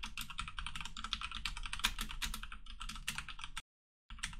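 Fast typing on a computer keyboard, a dense run of key clicks that stops about three and a half seconds in, then a short flurry of keystrokes near the end.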